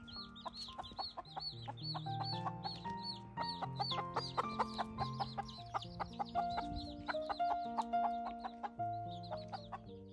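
Many baby chicks peeping continuously, short high chirps several times a second, over background instrumental music.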